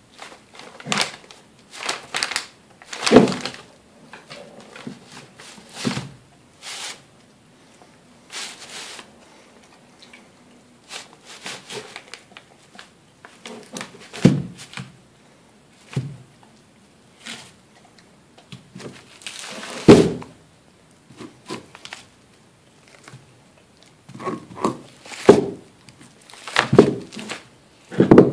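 Dog gnawing on a large raw soup bone: irregular crunches and knocks as its teeth work the bone and the bone shifts against the floor, with the loudest knocks around the middle and near the end.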